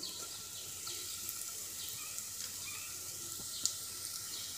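Cumin, fennel and mustard seeds sizzling in hot mustard oil with a pinch of asafoetida just added, a steady faint hiss with a few small pops, one sharper near the end. This is the tempering stage, the spices roasting in the oil before onion goes in.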